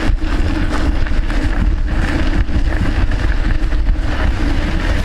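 Steady wind noise on the microphone while riding: a heavy low rumble with a rushing hiss above it.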